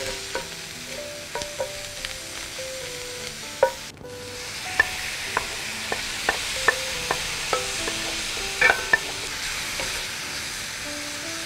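Food sizzling in a wok while two wooden spatulas stir and toss it, with sharp clacks of wood on the pan. At first it is shredded shiitake mushrooms stir-frying. After a cut about 4 seconds in, seasoned minced beef goes into the pan and fries with a louder, denser sizzle.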